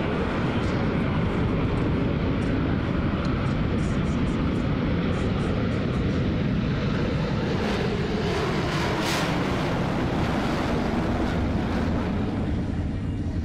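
Four Blue Angels F/A-18 Hornet jets flying in diamond formation: a steady jet-engine roar.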